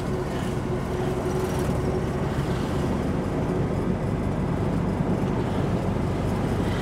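Tuk-tuk (auto-rickshaw) engine running steadily while riding, heard from inside the open cab, with road and passing traffic noise around it.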